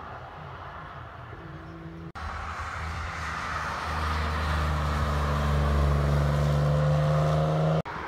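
Porsche 911 (996) flat-six engine under power as the car drives past on the track. The engine note climbs steadily in pitch and grows louder, then cuts off abruptly near the end. A fainter, more distant car engine is heard for the first two seconds.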